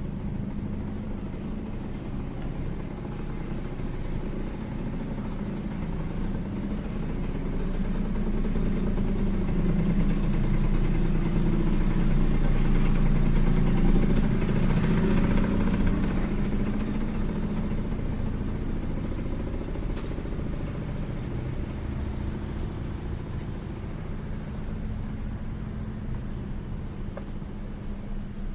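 Street traffic: a motor vehicle's engine hums, growing louder to a peak about halfway through and then fading away as it passes.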